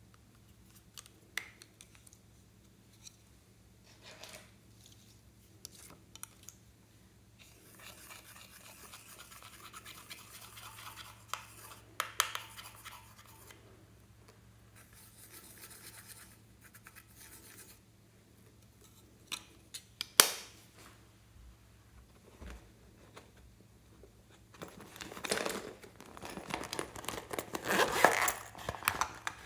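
Pressed eyeshadow being scraped out of a plastic palette's pans with a slim tool: dry scratching in stretches, with scattered clicks of the plastic case and one sharp snap about two-thirds through. Near the end, a zipper on a vinyl pouch is worked open with a dense rasping.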